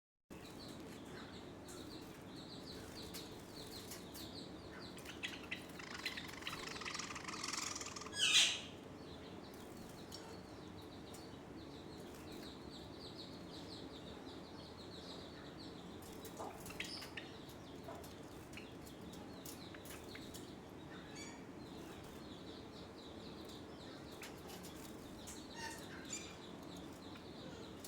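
Java sparrows chirping and squabbling, with a steady patter of short high chirps. A louder scuffling flurry builds about six seconds in and ends in one sharp, loud call, followed by scattered single calls.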